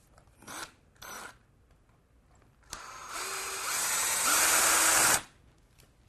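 Cordless drill/driver backing out an electrical outlet's mounting screw. There are a couple of short clicks first, then the motor runs for about two and a half seconds, louder in the last second, and stops abruptly.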